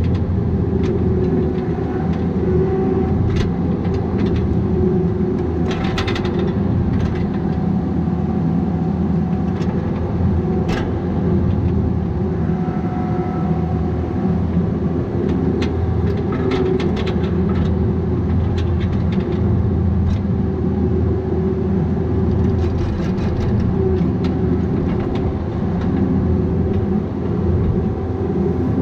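Bobcat 337G mini excavator's diesel engine running steadily under working load, with short knocks and cracks scattered through it from the machine working the downed tree.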